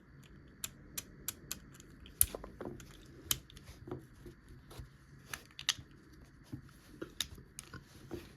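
Small hard plastic toy parts being handled: light, irregular clicks and taps, roughly two a second.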